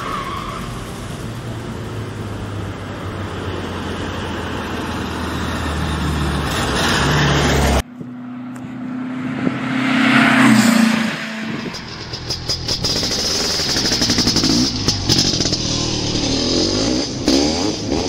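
Motor vehicle engine and road noise that grows louder and cuts off abruptly about eight seconds in. It gives way to an engine revving up and down, which is the loudest part, then a fast rattling run.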